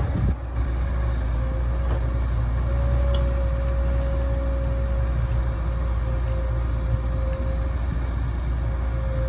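Heavy-equipment diesel engine running steadily under load, a deep rumble with a steady whine held over it.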